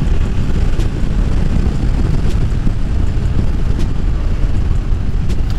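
Yamaha Tracer 7 motorcycle under way, its 689 cc parallel-twin engine running steadily beneath heavy wind rumble on the microphone.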